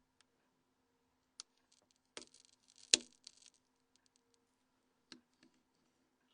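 Small sharp clicks and light scraping of a Nokia N82's parts as an SS93 opening tool levers its UI module up from the mainframe. There is a single click, then a short flurry of clicks and rubbing with one louder snap in the middle, then another single click.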